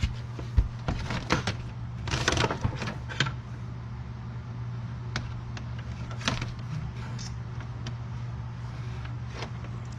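Hands working on wiring: scattered clicks, taps and a brief rustle while tapping into wires, over a steady low hum.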